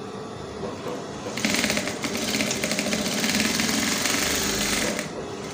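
Industrial single-needle sewing machine stitching a zipper into a dress at speed: a rapid, even rattle that starts about a second and a half in and stops shortly before the end.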